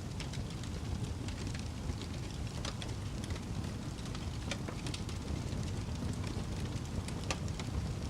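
Fire crackling, with sharp pops scattered irregularly over a steady low rumble.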